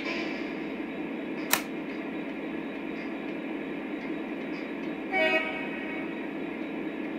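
Model diesel locomotive's onboard sound system playing a steady diesel idle rumble, with one short multi-tone horn toot about five seconds in. A single sharp click comes about a second and a half in.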